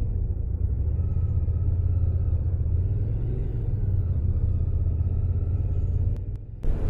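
Steady low rumble of a motorcycle under way, its engine and road noise mixed with wind on the microphone; it drops away briefly near the end.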